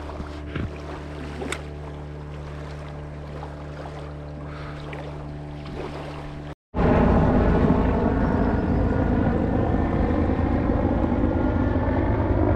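Outboard motor running under way aboard a small metal boat, loud and steady with wind and water noise; the motor is running worse and worse and not getting up to speed. Before it, a quieter steady hum with a few light clicks.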